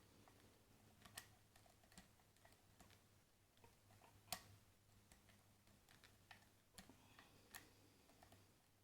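Faint, scattered clicks of a hook pick lifting and setting the pins of a pin-tumbler lock under light tension, with one sharper click about four seconds in.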